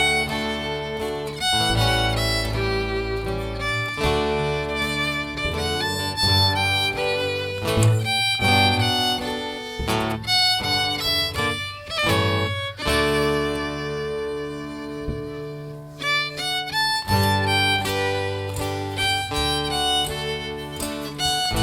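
Live acoustic string band playing an instrumental tune: a fiddle carries the melody over strummed guitar and a low bass line.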